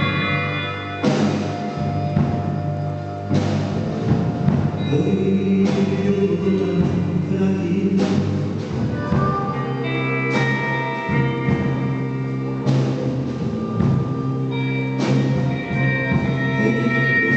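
A blues band playing: sustained guitar or keyboard notes over bass, with a heavy accent, like a cymbal crash with a drum hit, landing about every two and a quarter seconds.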